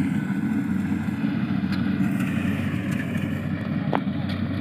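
A small engine running steadily at a constant speed, with a couple of faint clicks near the end.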